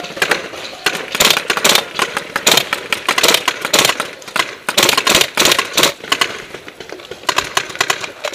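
WE G39 RAS gas-blowback airsoft rifle firing on full auto in repeated bursts of rapid clicking shots for about five seconds, then a shorter burst near the end.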